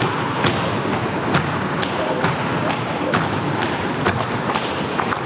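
Indistinct murmur of voices from a concert audience, with scattered knocks and thumps about every half second to a second.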